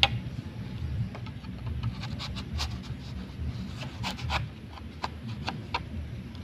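Scraping and knocking on a bamboo pole as it is worked by hand, in short, irregular strokes, with a sharp knock at the very start. A low, steady rumble lies under it.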